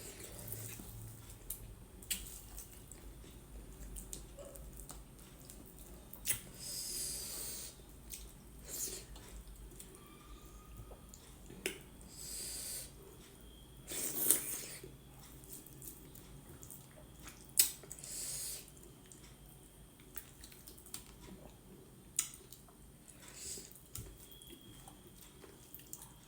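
A person eating dhido with gundruk gravy: quiet chewing and mouth noises, scattered small clicks and several short breathy hisses. The loudest hiss comes about halfway through, and a sharp click follows a few seconds later.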